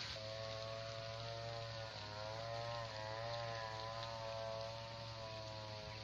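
Steady droning hum, probably from a distant engine, with its pitch wavering slowly up and down.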